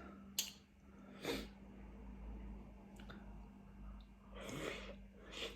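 Close-up mouth sounds of someone eating spicy noodles: a couple of sharp smacks early on and a short breathy rush of air about four and a half seconds in, over a faint steady hum.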